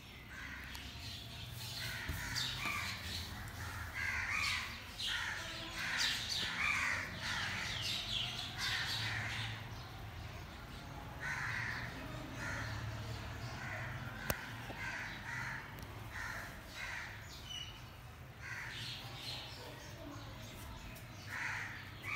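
Crows cawing repeatedly, several calls overlapping, busiest in the first half and fewer later.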